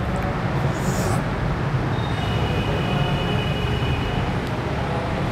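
A steady low rumble, with a faint high steady tone for about two seconds in the middle.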